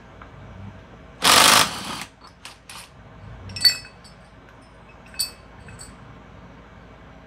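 Cordless impact wrench hammering for just under a second on the flywheel nut of a Honda GX160 engine, breaking it loose. A few light clicks and sharp ringing metallic clinks follow as the loose nut and socket are handled and set into a small metal cup.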